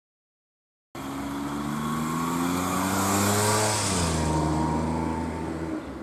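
A motor vehicle driving past, starting abruptly about a second in. Its engine note climbs slowly and then drops about four seconds in, and the hiss of the pass is loudest in the middle.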